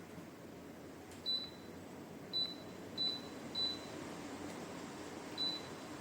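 Dreo Cruiser Pro tower fan beeping five times, short high single beeps the way it answers each button press as its settings are changed, over the steady hiss of the fan blowing.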